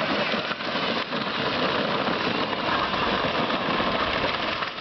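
24-volt Power Wheels ride-on toy car driving: a steady whirring noise from its electric drive motors and gearboxes as it rolls.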